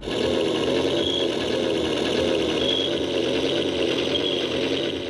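Radio-controlled scale-model Sherman tank running as it drives, a steady engine-like drone with a slightly wavering whine. A faint high tone recurs about every second and a half.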